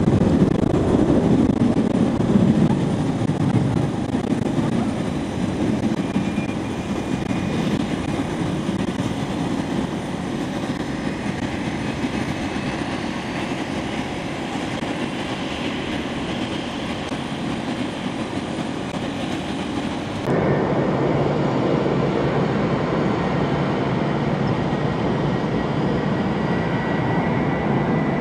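Steady jet-aircraft engine noise at an airport apron, a continuous rumble. An abrupt cut about twenty seconds in brings a louder, brighter sound of an Airbus A320's IAE V2500 turbofans running, with a faint steady high whine.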